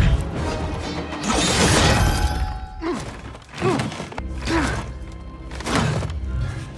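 Action-film fight soundtrack: dramatic music under a series of sudden hits and thuds from the brawl.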